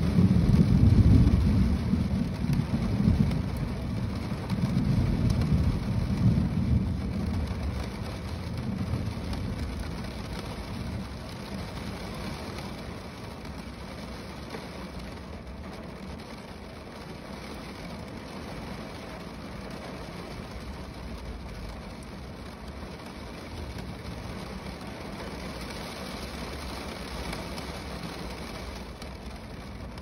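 Rain drumming on a car's roof, a steady patter of drops. A deep rumble, loudest at the start, dies away over the first ten seconds or so.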